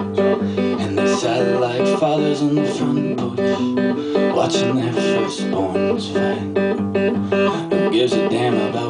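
Acoustic guitar strummed in chords.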